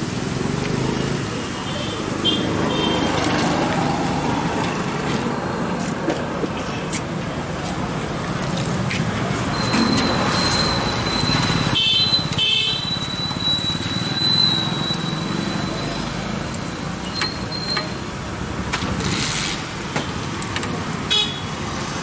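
Busy street noise: passing road traffic with a few short vehicle horn toots, one around two seconds in and more about halfway through and near the end.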